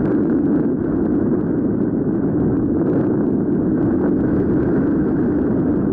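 Steady wind noise rushing over the microphone of a paraglider pilot's body-mounted camera, from the airflow in flight low over the ground.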